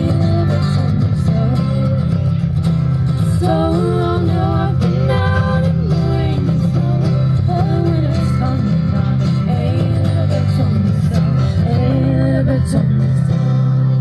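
Bluegrass string band playing live: acoustic guitar, banjo and upright bass under a melody that slides in pitch. Near the end the band settles onto a held final chord.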